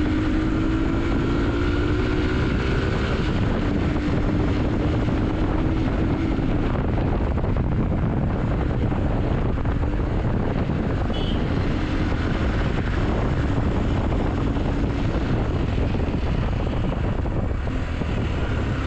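Hero XPulse motorcycle with a modified exhaust running under way, its engine note faint under heavy wind noise on the microphone, rising gently in the first few seconds.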